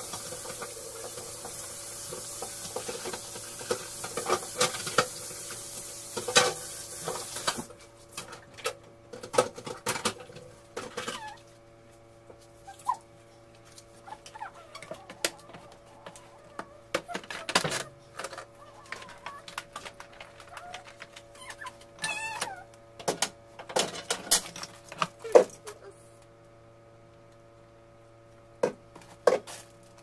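Jars, bottles and plastic food containers knocking and clinking as they are moved around in a refrigerator's door shelves, in many short irregular knocks over a steady low hum. A high hiss stops about eight seconds in.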